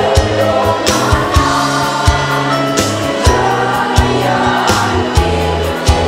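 Women's choir singing a march in unison over an instrumental accompaniment, with steady low bass notes and a regular beat.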